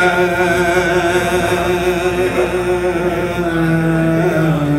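A man chanting a Mouride khassida, an Arabic devotional poem, into a microphone. He holds one long drawn-out note without words, and the note steps down in pitch near the end.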